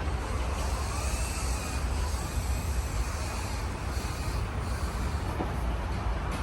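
Steady low rumble of a truck's engine running.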